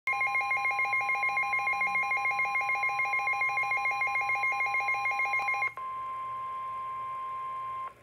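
Midland NOAA weather radio sounding its fast-pulsing alert alarm over a steady single tone, signalling a severe thunderstorm warning. Near six seconds in the pulsing stops and the steady warning alarm tone carries on alone, quieter, then cuts off suddenly.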